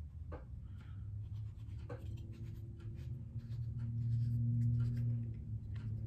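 Light clicks and scratchy rubbing from hands turning and handling a 2.2x telephoto converter lens. A steady low hum runs underneath and swells about midway.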